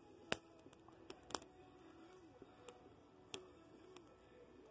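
Wood fire of dead tree branches crackling in a small kettle barbecue: a handful of sharp, scattered pops, the loudest about a third of a second in, over a quiet background.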